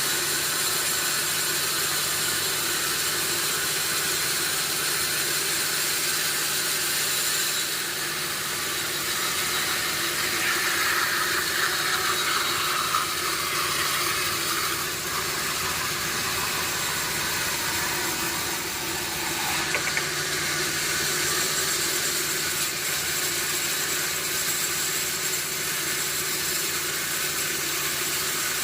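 Sawmill machinery running steadily with a constant hum and hiss, not yet cutting.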